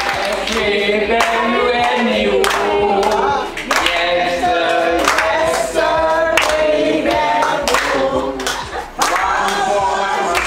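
Several voices singing together, with hand claps.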